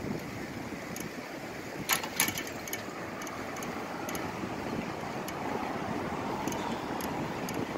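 Bicycle rolling along a concrete path: steady tyre noise and wind on the microphone, with a few sharp clicks or rattles about two seconds in.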